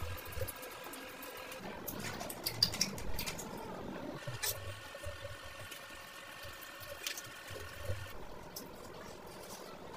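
Close-up eating sounds of a person chewing fried whole fish: wet chewing and mouth smacking, with scattered sharp clicks and crackles, and a drink swallowed from a glass about four seconds in.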